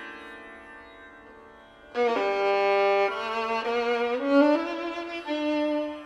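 Background music on string instruments: a plucked note dies away, then a louder sustained, bowed-sounding melody comes in about two seconds in, with a few notes sliding in pitch.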